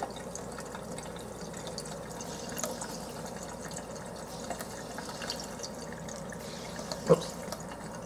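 A slow stream of tap water running from a kitchen faucet into a sink, a steady, faint splash with no popping or crackling from the flame held in it. A few small ticks, and one short thump about seven seconds in.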